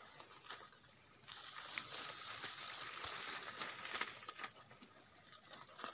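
Footsteps crunching and rustling through dry leaf litter and undergrowth, with many small irregular crackles, over a steady high-pitched insect buzz that swells about a second in.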